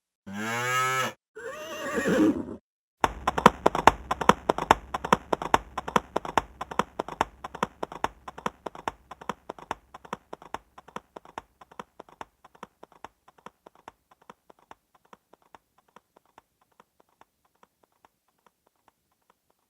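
Yamaha YPT-300 Portatone keyboard's synthesized horse sound effect: a horse whinny in two parts, then from about three seconds in a long run of galloping hoofbeats that slowly fades away.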